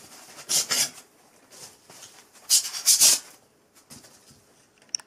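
White polystyrene foam packing rubbing and squeaking as it is pulled off a resin 3D printer. It comes in two loud scraping bursts, about half a second in and again around two and a half to three seconds in, with lighter scuffs between.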